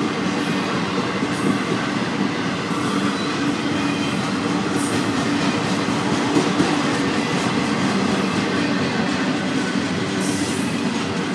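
Intermodal freight train cars (trailers on flatcars and double-stack well cars) running past steadily, their steel wheels rolling over the rails.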